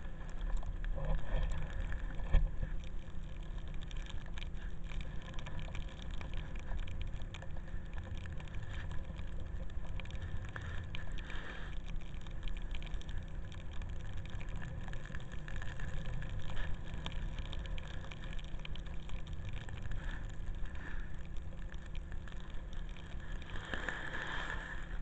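Wind buffeting a pole-mounted camera's microphone, with the steady hiss and scrape of a board sliding and carving over snow.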